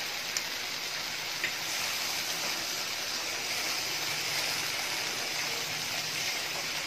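Soya chunks in onion-tomato masala sizzling steadily in a nonstick pan while a wooden spatula stirs them, with a couple of light clicks in the first two seconds.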